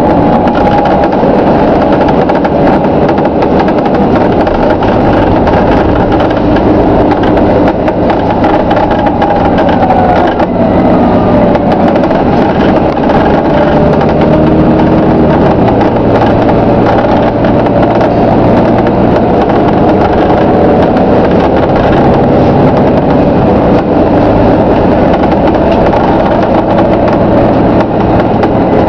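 Volvo B9TL double-decker bus with Wright Eclipse Gemini bodywork under way, heard from inside: drivetrain and road noise with a whine that slowly rises and falls in pitch as the bus changes speed, and creaking from the body.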